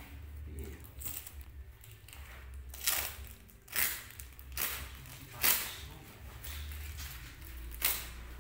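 Short crunching rustles, about five over several seconds, as hands press and work loose potting medium around a small plant in a plastic pot, over a low steady hum.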